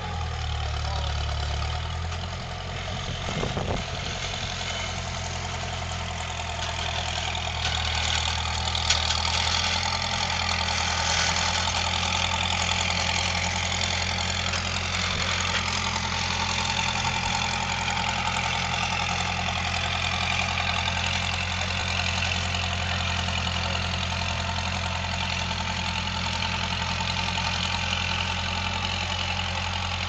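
Skid steer engine running steadily as the machine drives across the grass carrying a cultivator on its forks.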